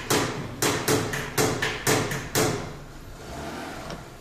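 A quick series of sharp hammer knocks, about eight blows in the first two and a half seconds, each with a short ring, then stopping.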